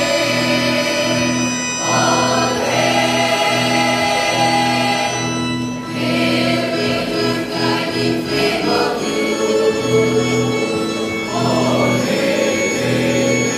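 A mixed choir of high-school graduates singing together under a conductor, in phrases with short breaks between them.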